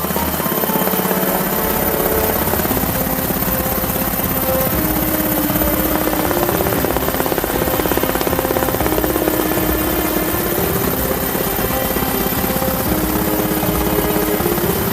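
Helicopter rotor chop, a fast steady pulsing, with background music playing over it.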